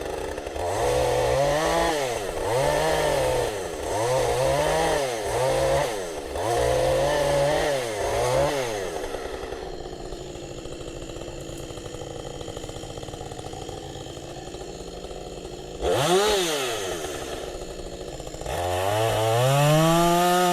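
Chainsaw cutting into a large tree trunk, revving up and down in repeated pulses about once a second, then dropping to a steady idle for several seconds with one quick rev, and revving up high again and holding near the end.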